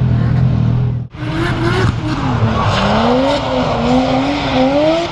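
Drift car engines on track: a loud low engine rumble breaks off about a second in, then a drift car's engine revs up and down in repeated waves as it slides through the corners, with tyre squeal.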